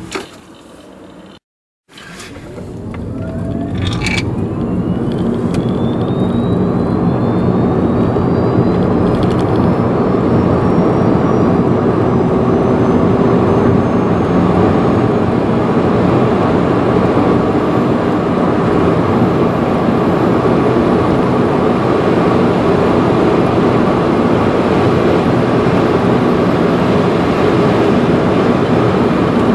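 Renault ZOE's 88 hp electric motor under full acceleration, heard inside the cabin: a thin whine rising steadily in pitch over about a dozen seconds. Under it, road and wind noise swells and then holds as a steady loud rush at around 130 km/h. There is a short dropout in the sound near the start.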